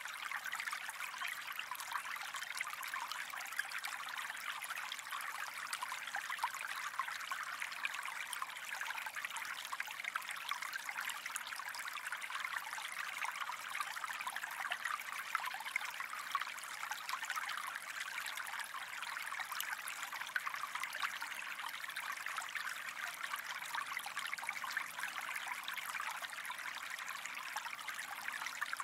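Gentle stream running with a steady trickling babble.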